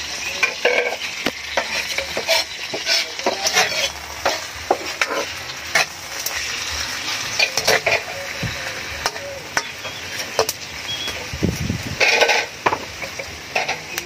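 Bird meat sizzling as it fries in oil in a wok, while a metal spatula stirs it, scraping and clinking against the pan over and over.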